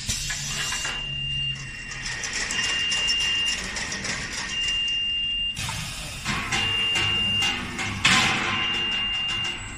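Automatic edge flaring/expanding machine for water heater tank bodies running: hissing air with clicks and knocks from the tooling, and a sudden loud hiss near the end. A high-pitched beep sounds for about a second, about every two seconds, throughout.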